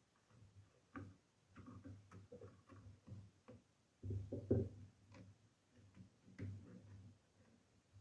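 Cardboard packaging being handled and folded by hand: faint, irregular taps and knocks, with a louder cluster of knocks about four seconds in.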